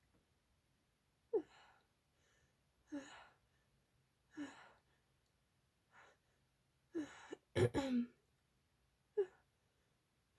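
A person with a cold making a series of short breathy, voiced catches every second or so, the sharpest and loudest a double one about three quarters of the way through, as a sneeze builds up.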